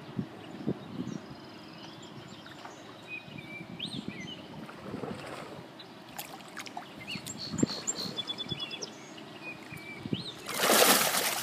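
Spawning fish splashing in shallow water at the river's edge: a burst of splashing near the end, the loudest thing heard. Before it, a low outdoor background with faint bird chirps.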